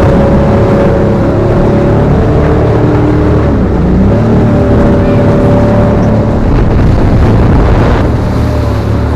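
Motorboat engine running hard under way, its pitch dipping briefly and then climbing again, over a steady rush of water and wind noise.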